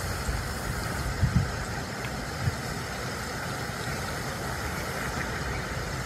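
Wind buffeting the phone's microphone: a steady low rumble with uneven flutter, and two brief thumps about one and two and a half seconds in.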